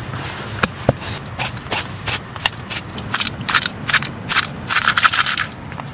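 Crumpled aluminium beer can crinkling and crackling as it is squeezed by hand to push frozen beer slush out into a cup. The crackles come as many short, irregular strokes and are densest near the end.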